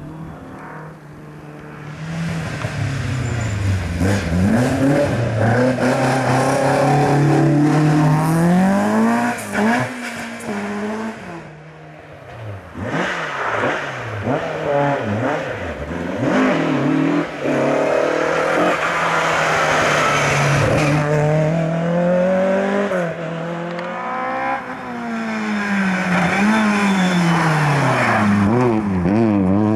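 Rally cars driven hard one after another on a tarmac stage. The engines rev up and drop back again and again through gear changes and corners, including an orange Ford Escort Mk2 and a Citroën C2.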